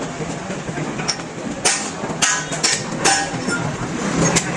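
Hammer striking metal in a welding job: a run of sharp, unevenly spaced clanks, some with a brief metallic ring, over a steady workshop background.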